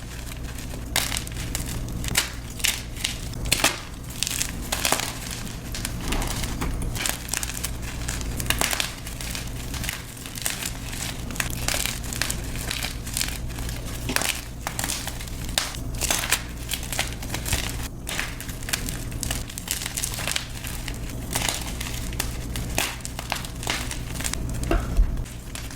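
Blocks of gym chalk being crushed, crunching and crackling in quick, irregular crunches throughout, over a faint steady low hum.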